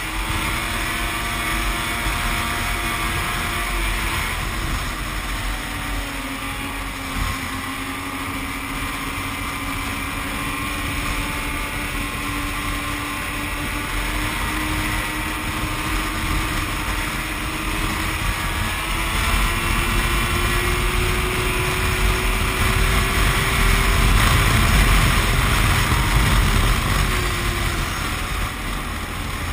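Yamaha snowmobile engine running steadily at cruising speed, its pitch drifting gently, over a rush of wind on the microphone. The engine and wind grow louder a little past the middle, then ease off near the end.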